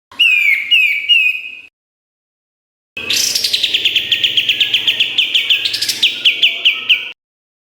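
White-shouldered triller (kapas tembak) singing: a short phrase of three downslurred notes, then after a pause a long, rapid trill of repeated downslurred notes, about five a second, lasting about four seconds and ending abruptly.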